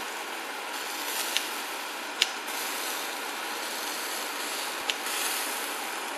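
Beef tripe (mino) sizzling on a wire grill mesh, a steady hiss, with three sharp clicks of metal tongs, the loudest about two seconds in.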